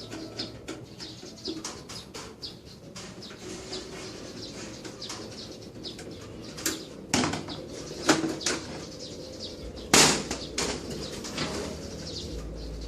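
Clicks, rattles and knocks of a desktop computer case being handled and opened, with louder sharp knocks about seven, eight and ten seconds in.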